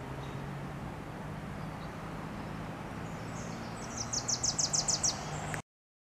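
Wilson's warbler singing: a quick chattering run of about nine sharp, high chips starting a little past the middle, over a steady low background hum. The sound cuts out abruptly just before the end.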